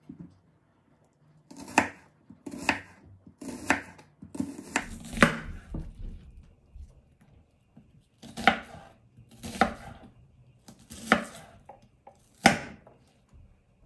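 Chef's knife slicing a large onion into rings on a wooden cutting board: about nine separate, crisp cuts at a slow, even pace, with a pause of a couple of seconds about halfway.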